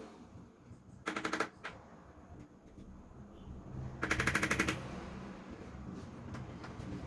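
Two short bursts of rapid clicking, a fast even rattle of many clicks a second, about a second in and again, louder, around four seconds in.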